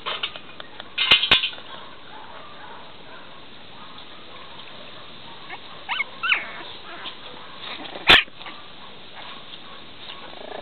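Young puppies giving a few short, high-pitched yips and squeaks: a cluster about a second in, a couple of gliding squeaks around six seconds in, and a louder yip near the end.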